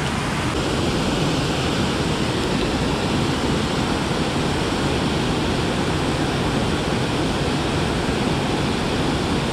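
Water pouring over a low river spillway dam, a steady rush of falling and churning water.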